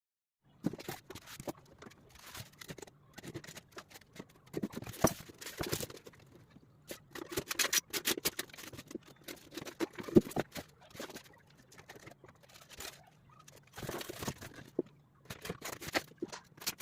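Irregular taps, clicks and rustling scrapes of materials being handled and worked by hand, starting about half a second in.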